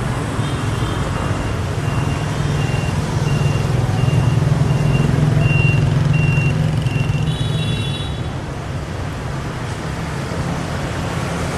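Street traffic: a vehicle engine rumbles past close by, swelling in the middle and then easing off. A short electronic beep repeats about twice a second through the first half, and a horn sounds briefly a little after seven seconds.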